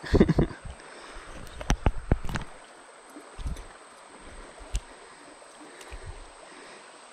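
Steady rush of a small creek's running water, with a flurry of knocks and clicks in the first two and a half seconds and a few more scattered later.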